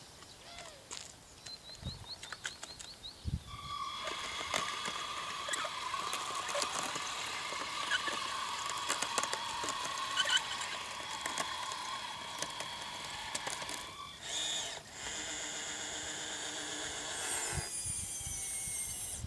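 Electric drive motors and gearboxes of a radio-controlled tracked loader whining as it drives, starting about three and a half seconds in, with scattered clicks. The whine drops out briefly past the middle, comes back on a different pitch, and shifts higher near the end.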